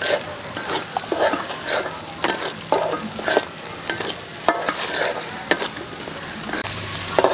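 Metal spatula scraping and stirring a spice paste as it fries and sizzles in a steel wok, with sharp scrapes about twice a second over a steady sizzle.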